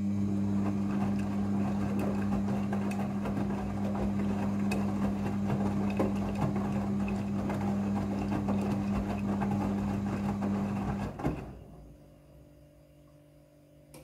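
Midea front-loading washing machine tumbling a load of clothes during the rinse: the drum motor hums steadily under the rustle and thudding of the laundry turning in the drum. About eleven seconds in the motor cuts off with a knock and the drum stops, a pause in the tumbling.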